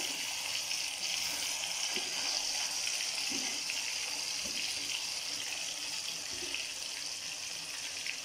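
Marinated fish pieces deep-frying in hot oil in a kadai: a steady sizzle with a few faint crackles.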